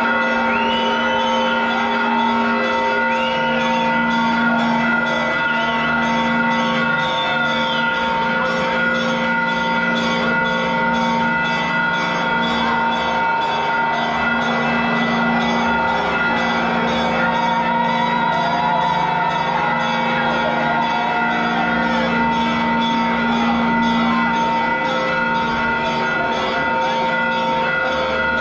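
Church bells ringing continuously, many tones sounding together, over the voices of a large crowd in a big echoing church.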